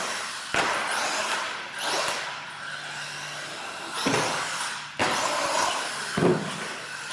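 Radio-controlled monster truck running on a concrete floor, its motor and tyres surging up and down as it is driven, with sudden louder hits about half a second in and about five seconds in.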